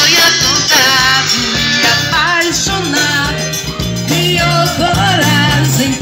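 Live forró band music: a piano accordion playing the melody over a steady, repeating bass line.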